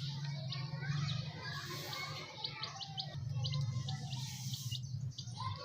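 A group of baby chicks peeping: many short high cheeps and downward-sliding calls overlapping, over a steady low hum.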